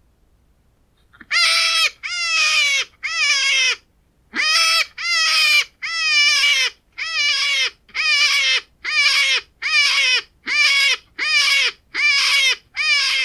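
Hare squealing in a rapid series of about fifteen short, loud, nasal calls, each dropping in pitch at its end, coming roughly one a second after a brief pause. This is the distress squeal a hare gives when threatened.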